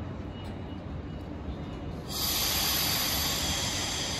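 Low rumble of an EP2D electric multiple unit at the platform, then about two seconds in a sudden loud hiss of compressed air from the train's pneumatic system that holds steady.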